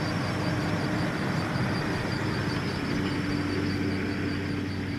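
Military vehicle's engine running steadily: an even low hum with a steady tone over it.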